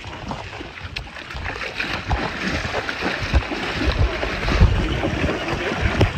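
Water splashing and sloshing around the rafts, with irregular low rumbling from wind or handling on the microphone.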